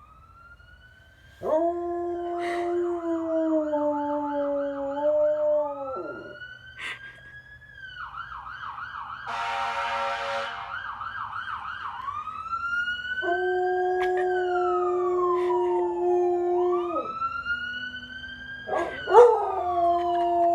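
A dog howling in long, steady notes in three stretches along with an emergency-vehicle siren. The siren sweeps up and down and twice switches to a fast warble, with a brief harsh blast about halfway through.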